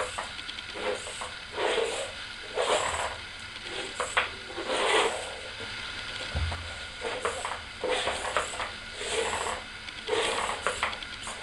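Electronic toy cat giving short hissing, spitting bursts again and again, with small clicks from its moving mechanism as it lunges.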